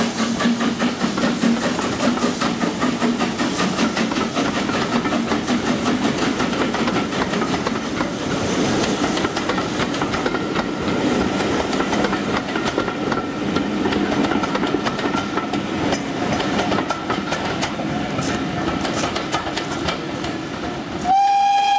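BR Standard Class 4MT steam locomotive No.75069 working past with its exhaust beats, followed by its train of coaches rolling by with wheels clattering over the rail joints. A steam whistle starts sounding just before the end, held as one long note.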